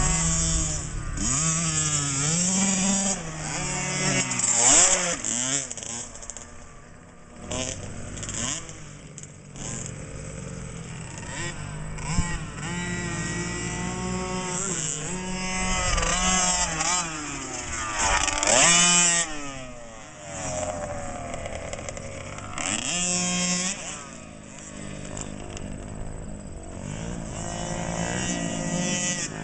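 Small 50cc two-stroke motocross bikes revving as they ride the track, the engine pitch rising and falling again and again through the gears and over the jumps.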